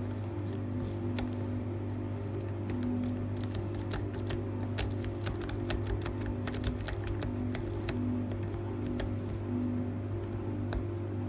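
Irregular light metal clicks and ticks of a small flag pick working the pin stack of a dimple shutter lock, pins being pushed and set one by one, with the clicks thickest in the middle stretch. Soft background music and a steady low hum run underneath.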